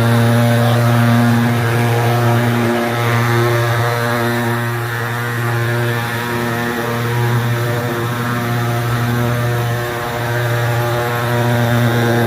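Superfogger KB 250 thermal fogging machine's pulse-jet engine running: a loud, steady, buzzy low drone that dips slightly in level a few times.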